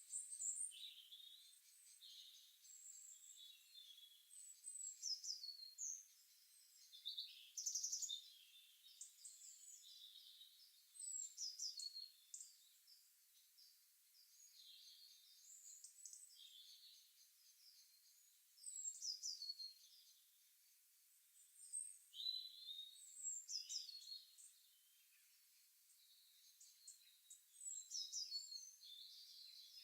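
Morning birdsong: songbirds singing high chirping and down-sweeping phrases in bursts every few seconds, with short quiet gaps between them over a faint hiss.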